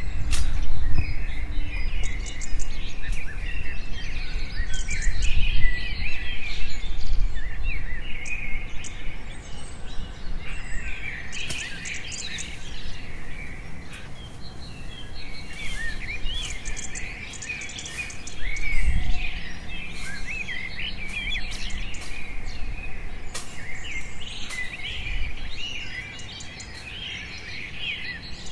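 Many small birds chirping and trilling over each other in forest, above low rustling and scattered knocks of someone moving through the undergrowth, with a louder thump about two-thirds of the way in.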